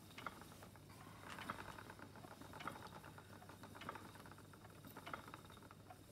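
Wooden spinning wheel running steadily, with a faint regular knock about once every second and a quarter and light ticking in between.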